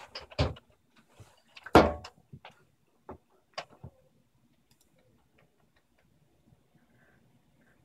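A few sharp clicks and knocks at a desk, the loudest a single thump a little under two seconds in, then a few lighter clicks around three to four seconds in and only faint ticks after.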